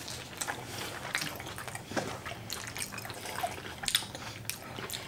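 Two people chewing mouthfuls of food with their mouths close to the microphone, giving many small, irregular smacks and clicks.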